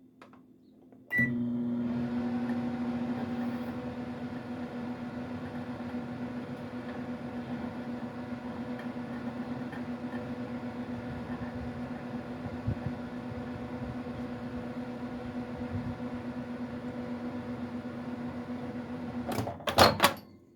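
Microwave oven switching on with a click and a short beep, then running with a steady electrical hum for about 18 seconds while a cockroach is cooked inside. It stops near the end with a few loud clicks.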